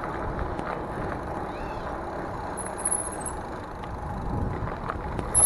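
Steady riding noise from a Mongoose Dolomite e-bike rolling over pavement: tyre rumble mixed with wind on the handlebar-mounted microphone.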